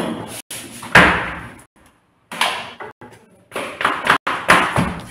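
Several short knocks and rustles from handling on a tabletop, the loudest about a second in, with gaps of silence between them.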